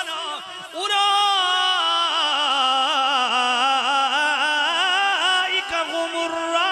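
A man's voice in melodic Qur'an recitation, drawing out the end of a verse in one long held note whose pitch wavers and curls in ornaments. The note starts about a second in and fades near the end.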